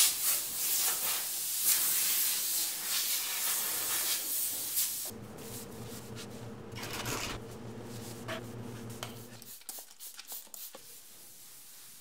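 A hose sprays with a loud, steady hiss for about five seconds. A shop vacuum's motor then runs with a steady hum for about four seconds and stops about ten seconds in, leaving faint hand rubbing of a scuff pad on paint.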